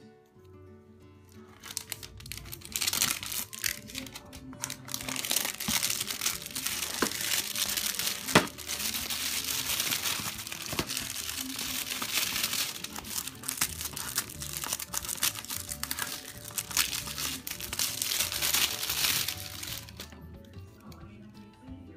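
Plastic wrapping crinkling and tearing as it is pulled off a cardboard box by hand, starting a second or two in and dying away near the end, with one sharp crack about eight seconds in.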